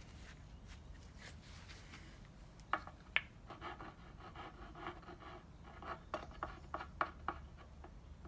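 Faint handling noises from applying gasket sealant to a valve cover gasket: two sharp clicks about three seconds in, then soft scratching and rubbing with small ticks.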